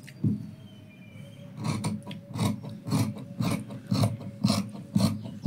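Tailor's scissors snipping through checked fabric along a chalk line: a run of short crisp cuts at about two a second, starting a little over a second in.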